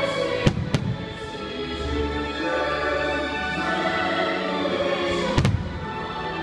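Fireworks shells bursting over orchestral show music. Two sharp bangs come close together about half a second in, and another pair about five seconds later.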